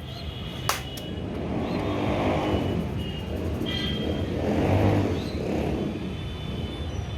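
Road traffic passing close by: two vehicles swell up and fade away, loudest about two seconds and five seconds in. There is a single sharp click near the start.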